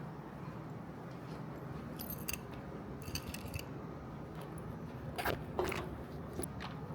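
Keys jangling and clicking in small clusters, with a few louder knocks about five seconds in, over a steady low hum.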